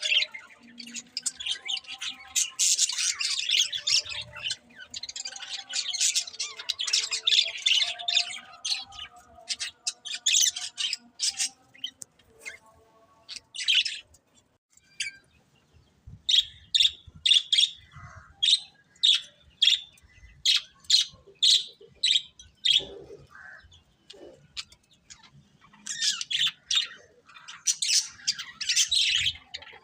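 Budgerigars chattering and warbling. Partway through, the chatter gives way to a series of sharp, evenly spaced chirps at about two a second, and then the busy chatter returns near the end.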